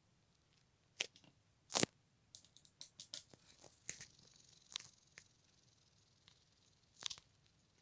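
Scattered light clicks and scratches from a budgerigar's claws and beak on a clear plastic box as it moves about. A sharp click comes about two seconds in and another near the end.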